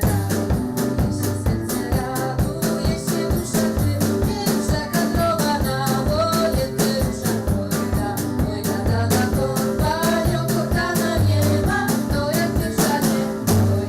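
Upbeat music with a steady drum beat and a moving bass line under a melody.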